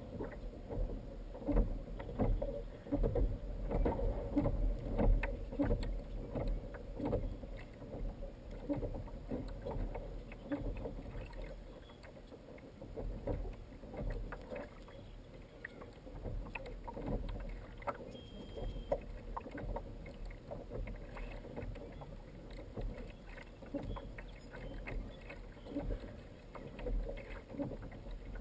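Water lapping and slapping against the plastic hull of a Hobie Mirage kayak in small, irregular knocks and splashes, busiest in the first ten seconds.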